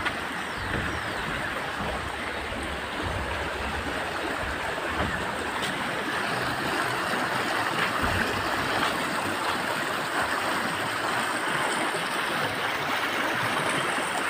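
Stream water running fast over rocks: a steady rush that grows slightly louder toward the end.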